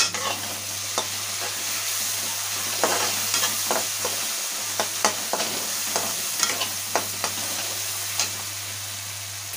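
Onion-tomato masala with freshly added ground spices sizzling in a metal kadhai while a metal spatula stirs it. The spatula scrapes and clicks against the pan many times, most often in the middle stretch.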